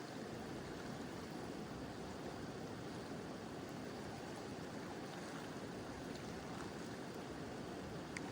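Mountain river flowing steadily, a continuous rushing of water, with light rain. There is a brief sharp tick near the end.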